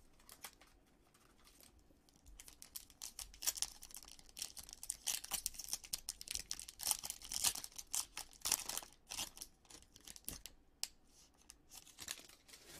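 Shiny foil wrapper of a Topps Allen & Ginter Chrome baseball card pack being torn open and crinkled by hand: a dense crackling rustle that starts about two seconds in and dies down near the end.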